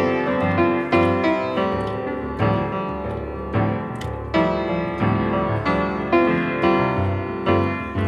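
Instrumental piano music, a steady stream of struck notes without singing.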